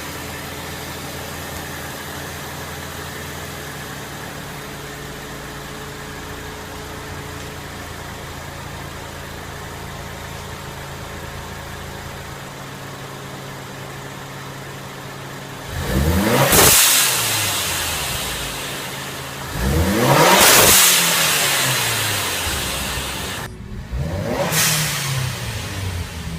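Ford Escape 2.0 turbocharged four-cylinder, fitted with a Turbosmart blow-off valve, idling steadily, then revved twice. Each rev climbs quickly and falls away over a few seconds with a rushing hiss. A few quick blips of the throttle come near the end.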